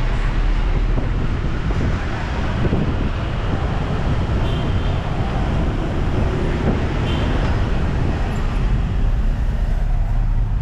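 Steady road traffic noise with a deep, continuous rumble.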